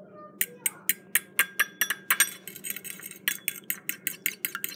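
Metal fork whisking egg white in a small glass bowl, clinking quickly against the glass about four times a second.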